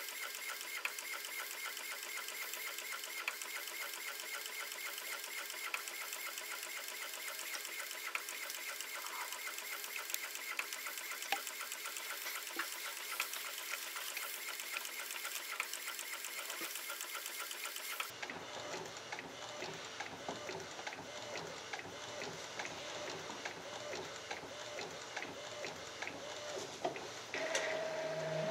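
Converted Epson inkjet DTF printer printing onto film, its print-head carriage shuttling back and forth in a fast, even mechanical chatter, played fast-forwarded. About two-thirds of the way in the sound changes and becomes fuller and lower.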